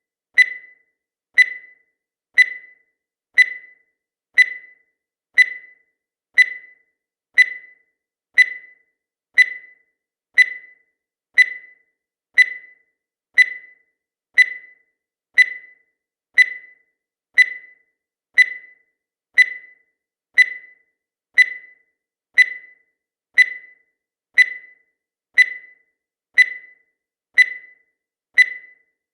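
Countdown timer sound effect: one short, high beep every second that dies away quickly, with silence between beeps.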